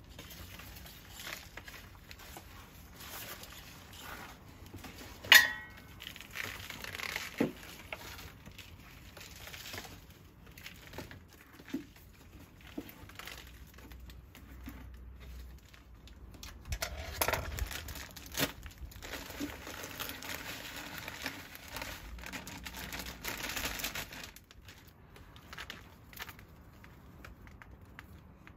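Gloved hands working potting soil into a plastic plant pot, with irregular rustling and crinkling of soil and plastic. A sharp knock about five seconds in rings briefly.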